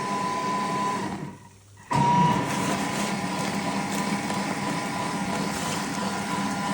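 Steady whir of a running motor with a constant hum, broken once by a brief drop to near silence about a second in before it resumes abruptly.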